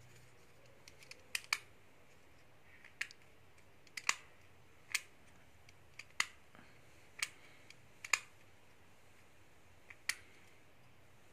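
Round plastic air-conditioning vent from a coach being worked by hand, its flap and swivel clicking: about a dozen sharp plastic clicks at irregular intervals, some in close pairs.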